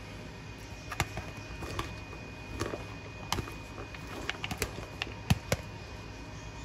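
Scattered light clicks and taps of food and packaging being handled at a kitchen counter, irregular and a few a second at most, the sharpest a little after five seconds in, over a faint steady hum.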